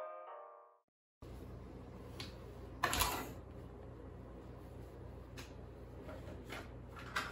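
Intro music fades out in the first second. After a brief silence comes room tone with a steady low hum, broken by a few short knocks and rustles of handling. The loudest knock is about three seconds in.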